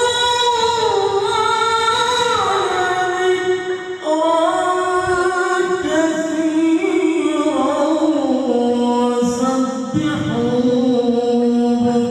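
A male qori reciting the Qur'an in the melodic tilawah style. He holds long notes and slides slowly between pitches in ornamented runs, with a brief breath about four seconds in.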